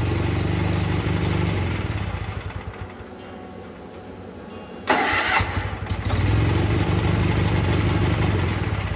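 Wheel Horse 417A garden tractor's Kohler engine being started twice on its freshly overhauled starter. Each time a short, sharp burst of the starter engaging is followed by the engine running for a couple of seconds, which then fades away; the second start comes about five seconds in.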